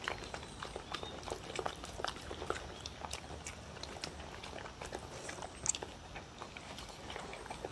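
Two dogs eating from a wooden bowl: quick, irregular wet chewing and licking clicks, with one louder click about three-quarters of the way through.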